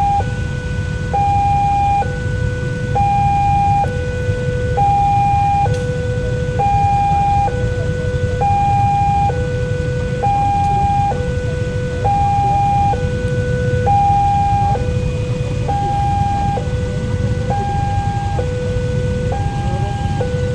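Railway level crossing warning siren sounding a steady two-tone hi-lo alarm, a higher and a lower tone alternating about once a second each, over a low rumble.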